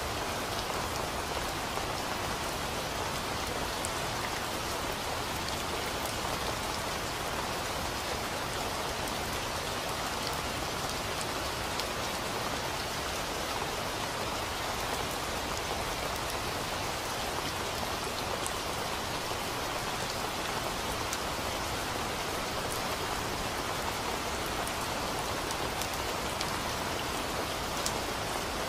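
Steady rain, an even hiss with occasional sharp drop ticks.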